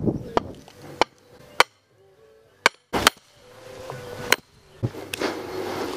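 A run of sharp, irregular knocks and clicks, about seven in all, with short quiet gaps between them, as of gear being handled and set up.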